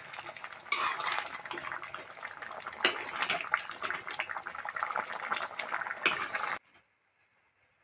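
Metal ladle scraping and clinking against a metal kadai while stirring a thick, simmering gourd and lentil curry, with a few sharper knocks of the ladle on the pan. The sound cuts off suddenly near the end.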